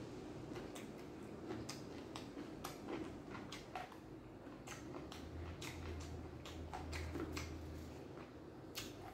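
Close-up eating sounds: a person chewing with irregular wet mouth clicks and smacks, a click or two each second. A low hum comes in midway and fades out.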